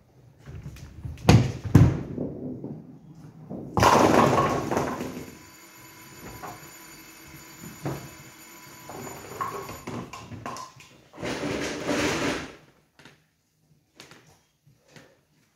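A nine-pin bowling throw: a couple of heavy thumps as the ball is put down on the lane, then a loud clattering crash about four seconds in as it hits the pins. A steady machine sound follows while the string pinsetter lifts and resets the pins, then another clattering rumble near the end.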